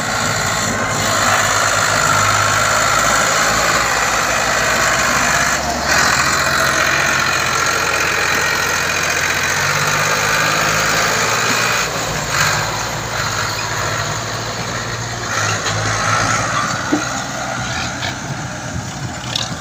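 Ford 4600 tractor's three-cylinder engine running steadily under load as it pulls a trailer heavily loaded with sugarcane, a little quieter in the second half as the tractor moves past and the trailer rolls by.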